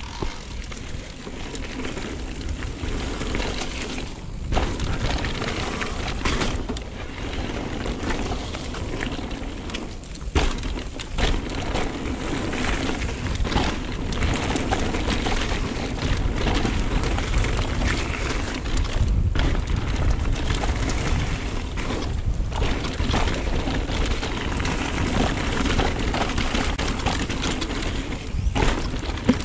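Mountain bike riding down a dirt downhill trail: steady tyre noise and rattle of the bike over the rough ground, with wind rumbling on the camera microphone. The noise drops out briefly a few times, and there are occasional sharp knocks.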